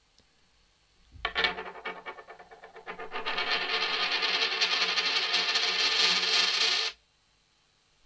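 A 10 pence coin spinning on a wooden tabletop. It starts about a second in as a loose rattle and builds into a dense, continuous whirr as it settles, then stops suddenly when the coin falls flat.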